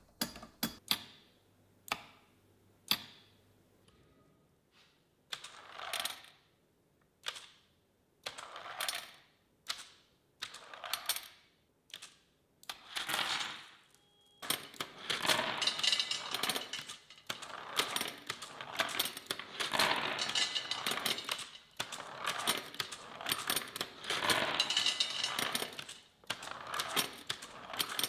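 Steel marbles rattling and clattering through stacked 3D-printed plastic ramps and spilling onto a wooden workbench. It starts as separate clicks and short runs of a few balls, then about halfway through becomes a continuous dense clatter of many balls.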